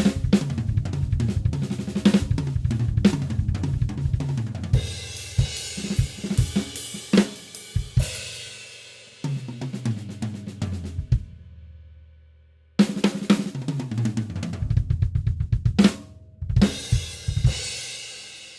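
Acoustic drum kit played solo: kick, snare, hi-hat and crash cymbals in busy fills, recorded with two overhead mics plus close snare and kick mics. The playing stops about eleven seconds in while the cymbals ring out, resumes about two seconds later, and ends with a cymbal decaying away.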